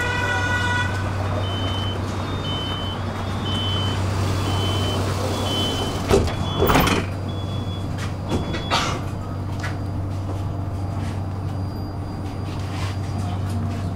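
Tram at a stop: a short tone, then the door warning beeping in short even pips, ending in a loud clunk as the sliding doors shut. A couple of lighter knocks follow over the steady hum of the tram.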